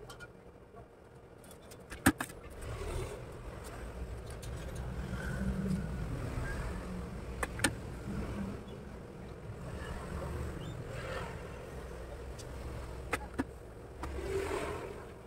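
Manual PVC ID-card cutter punching out cards with a freshly sharpened blade: a sharp click as each cut goes through, about 2 s and 7.5 s in, then twice close together near the end. A steady low rumble runs underneath.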